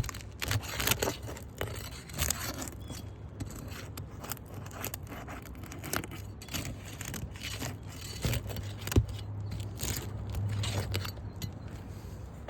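Roof shingles being pried up and worked loose by hand: irregular scraping and crackling with many sharp clicks.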